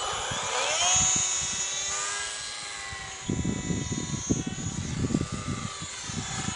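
Micro RC plane's tiny geared 7 mm electric motor and propeller whining, rising in pitch as it spools up in the first second, then holding a steady high whine. A gusty low rumble joins from about three seconds in.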